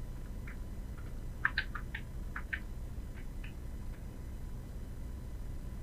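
Computer mouse button clicks, a quick cluster of short clicks about a second and a half in, with a few scattered ones before and after, over a low steady hum.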